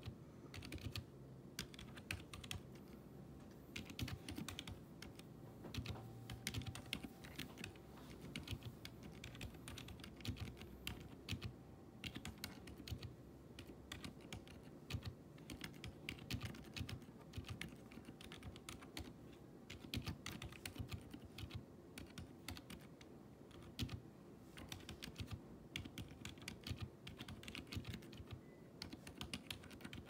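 Typing on a Royal Kludge RK92 mechanical keyboard with GamaKay Phoenix switches and PBT keycaps, its case modded with three layers of tape and PE foam: a fast, continuous run of keystrokes with a few brief pauses.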